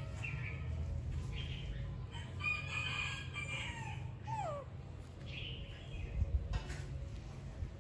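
A rooster crows once, about two and a half seconds in, a call of about two seconds that ends in a falling glide. A few fainter short calls come before and after it, over a steady low hum.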